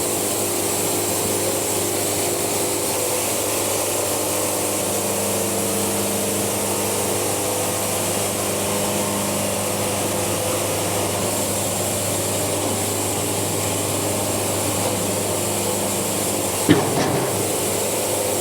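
Wood-Mizer portable band sawmill sawing through a log: engine running steadily while the band blade cuts, the blade lubricated by a gravity drip. A brief knock near the end.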